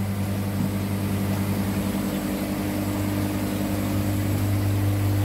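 300-watt external pump motor driving a brass rotary vane pump, running with a steady low hum: running nice and tidy.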